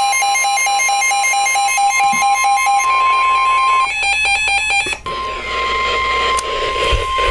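Weather alert radio sounding the steady 1050 Hz NOAA Weather Radio warning alarm tone together with a rapidly pulsing beep. About four seconds in the tone breaks for a second of rapid clicking pulses, then resumes over a hissier background.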